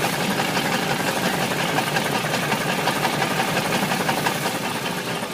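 Ford 351 Windsor V8 running with a rapid, steady knocking from a spun bearing, overheated as it is run to destruction; it eases off a little near the end.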